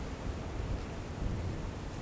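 Outdoor wind: a steady low rumble of wind buffeting the microphone, with an even hiss above it.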